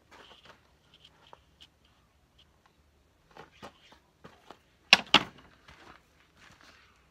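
Scattered light knocks and clicks of handling on a clamped plywood panel, with two sharp knocks about five seconds in as a hand tool is set down on the board.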